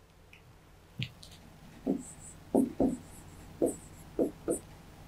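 Pen on a writing board as a formula is written by hand: a series of about seven short strokes and taps over a few seconds.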